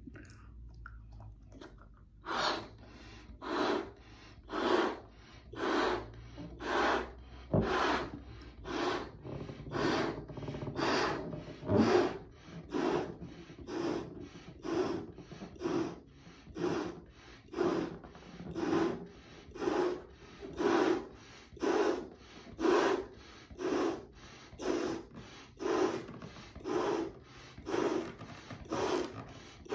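A large clear balloon being blown up by mouth: short breathy puffs of air into the balloon, about one a second, starting about two seconds in.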